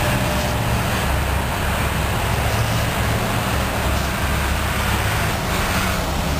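Electric hair clippers running with a steady buzz as they cut up the back of the head.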